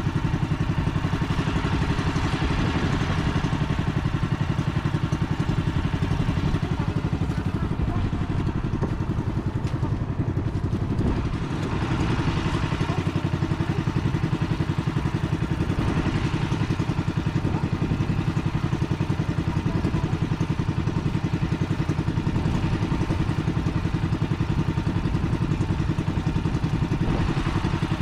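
Inboard engine of a motorized outrigger boat running steadily at constant speed, a fast even chugging.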